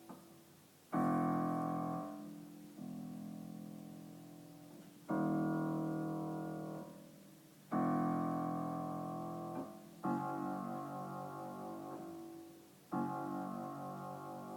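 Piano chords struck one at a time, six in all a few seconds apart, each left to ring and fade away slowly.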